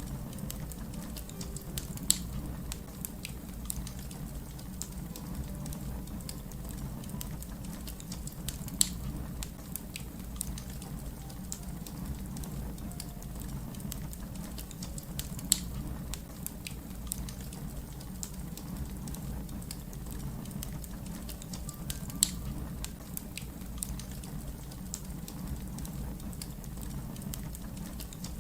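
Fire crackling: a steady low rumble of flames with scattered small crackles and four louder pops spaced several seconds apart.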